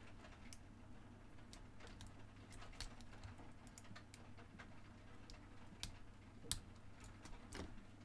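Irregular faint clicks and light scraping of a slim pick working the pins of a small 4-pin brass padlock's core, held under a slim tension tool: single pin picking.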